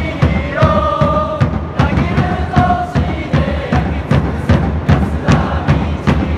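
Football supporters' crowd chanting a player chant in unison over a steady drum beat. The sung voices thin out about halfway through while the drumming carries on.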